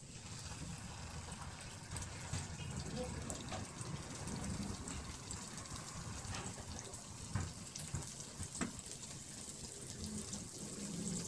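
Flour-coated chicken drumsticks sizzling in shallow hot oil in a wok, a steady hiss with scattered crackles and pops. The sizzle starts as the first piece goes in and carries on as more pieces are added.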